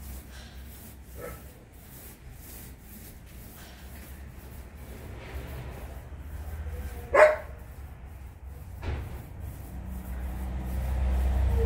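A dog barking: one loud bark about seven seconds in and fainter barks around it, over a low steady hum.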